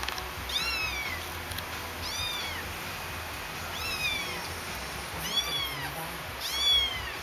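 A young kitten meowing repeatedly: five high, thin meows, each rising then falling in pitch, about one every second and a half. She is crying while straining to pass her first big stool after starting solid food.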